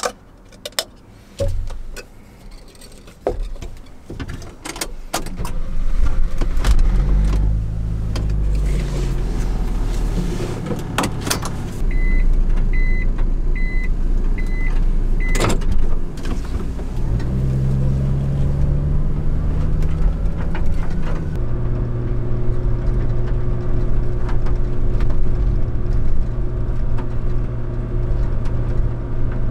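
Kei truck heard from inside the cab as it pulls away and gets up to speed. A few clicks and knocks first, then the engine comes up about five seconds in and rises and falls in pitch as the truck moves off. A run of about five short, evenly spaced beeps follows, then the engine climbs in pitch once more and settles into a steady even drone at cruising speed.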